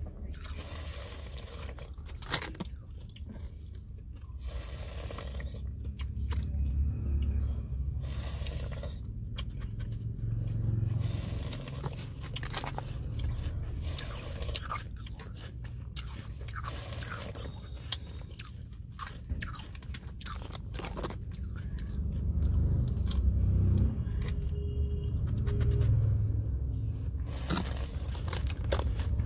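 Shaved ice of a gola being bitten and chewed, with repeated irregular crunches and some scraping.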